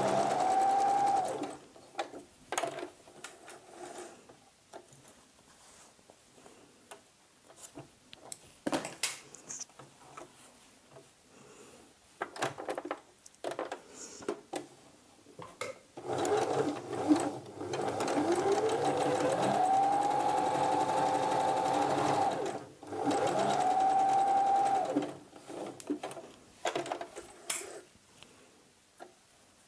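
Domestic electric sewing machine top-stitching fabric. It runs in three bursts: about a second at the start, about six seconds from the middle on, and two more seconds just after. Each time its whine rises in pitch as it speeds up, then holds steady. Between the runs there are small clicks and knocks as the fabric and machine are handled.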